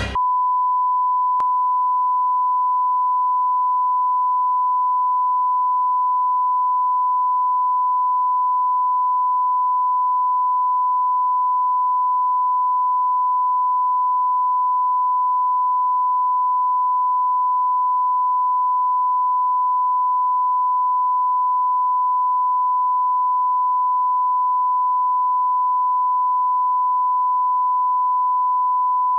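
Television censor bleep: one steady, unbroken beep tone at a single pitch, held continuously to mask a long stream of swearing.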